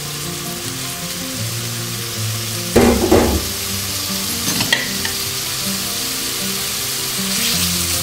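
Marinated chicken cubes sizzling steadily as they fry in hot oil in a frying pan while being stirred, with a brief louder clatter about three seconds in.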